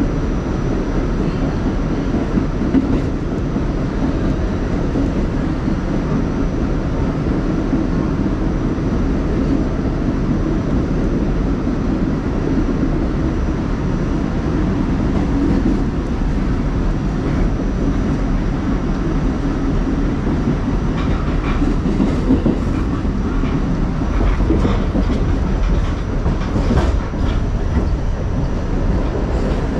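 New York City subway car running at speed, heard from inside the car: a steady low rumble of wheels on rails and car body, with a few sharper clicks and rattles near the end.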